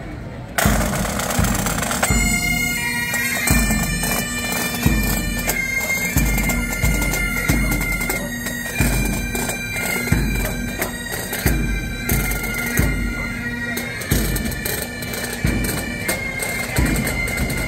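Pipe band playing: Highland bagpipes sounding their steady drones with a melody over them, which comes in about two seconds in, backed by marching drums beating steadily.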